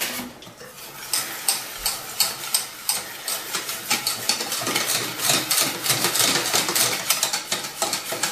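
Wire balloon whisk beating pancake batter in a stainless steel saucepan: a fast, steady clatter of the wires scraping and ticking against the pan's sides, several strokes a second, starting abruptly.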